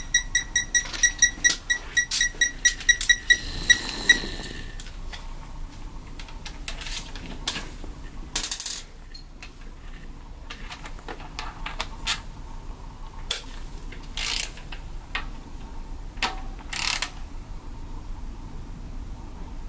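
Ratchet wrench clicking rapidly, about four ringing metallic clicks a second for some four seconds, then a few scattered sharp clicks from hand tools.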